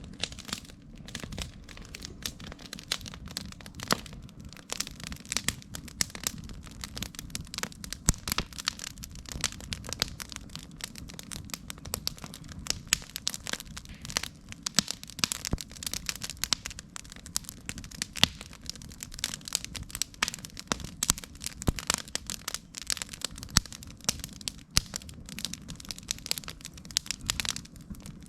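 Wood campfire crackling, with frequent irregular sharp pops and snaps over a low steady rumble.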